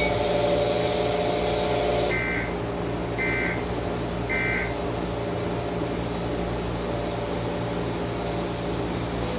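Three short bursts of Emergency Alert System digital data tones, about a second apart: the end-of-message signal that closes an EAS alert. A steady low hum runs underneath.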